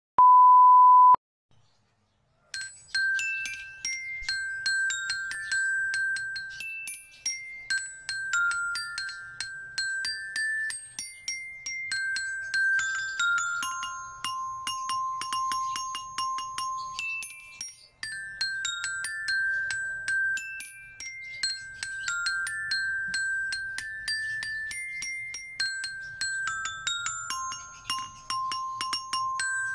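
A steady test-card beep tone for about a second, then a metal-bar glockenspiel played with a mallet: a simple melody of single struck, ringing notes, with fast repeated strikes on one lower note about midway and again near the end.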